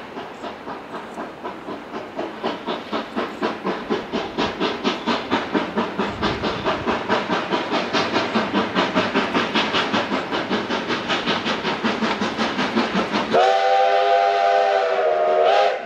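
Narrow-gauge steam locomotive working toward the listener, its exhaust chuffing in quick, even beats that grow steadily louder. Near the end the steam whistle blows one long chord of several notes for about two seconds, rising slightly in pitch as it closes.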